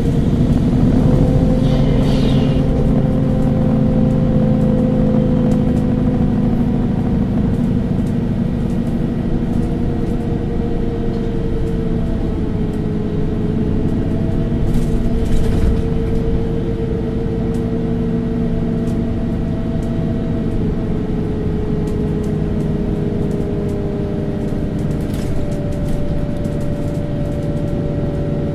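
MAN Lions City CNG city bus driving, heard from on board: a steady engine and driveline rumble with a whine whose pitch sinks and rises slowly as road speed changes.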